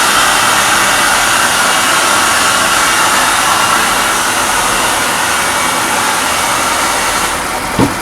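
Fada Wind scooter engine running steadily after repair: a dense, hissy whirr that eases slightly near the end, with one short knock just before it stops.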